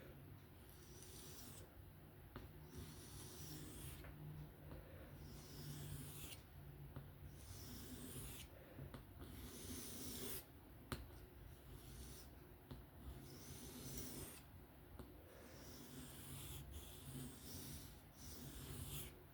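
Faint scraping of a steel knife blade being drawn across a whetstone in freehand sharpening, a slow, even rhythm of strokes about one every two seconds.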